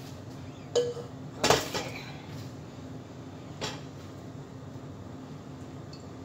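A stainless steel mixing bowl and a metal mesh sieve knocking and clinking as oily carrot pulp is scraped out with a silicone spatula: three sharp knocks, the loudest about a second and a half in and the last, smaller one after about three and a half seconds. A faint steady hum runs underneath.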